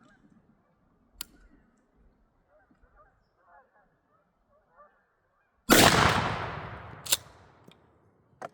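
A single shot from a 12-gauge Mossberg 500 pump shotgun firing a 3-inch Federal 3rd Degree turkey load, a sudden loud blast about two-thirds of the way in that dies away over about a second and a half. Two sharp clicks follow, the second near the end.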